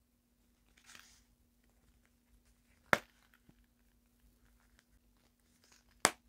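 Quiet handling of a plaid faux-leather long wallet, with two sharp clicks about three seconds apart as its metal snap buttons are unfastened and pressed shut, and a faint rustle near the start. A faint steady hum sits underneath.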